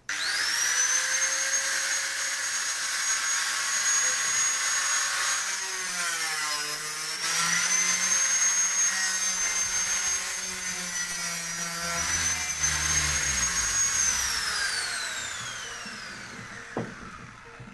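Handheld electric angle grinder switched on, spinning up to a high steady whine with grinding noise as it cuts. Its pitch sags under load about six seconds in, and from about fourteen seconds it is switched off and winds down in a long falling whine.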